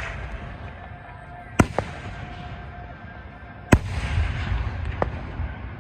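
Fireworks shells bursting: three sharp bangs about two seconds apart, the second the loudest, each with a low echo trailing after it, and a smaller pop just after the first.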